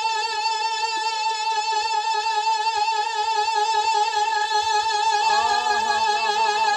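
A man's amplified singing voice holding one long high note with a slight vibrato during a naat recitation. About five seconds in, a second, lower voice joins in with short gliding phrases.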